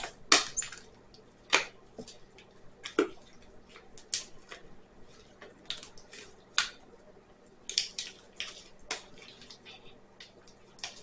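Sticky slime being squeezed and pulled by hand, making irregular short wet clicks and squelches.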